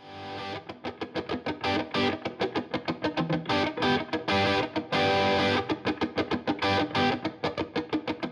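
Music led by an electric guitar with distortion, playing fast, choppy notes.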